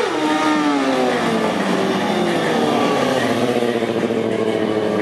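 Sport motorcycle engine revving high at first, its pitch falling over about the first second, then held at a steady note with small swells in the revs.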